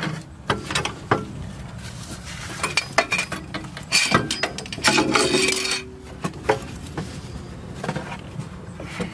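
Metal tools and car parts clinking and knocking during hands-on work on a CV axle, with a short scraping stretch about five seconds in.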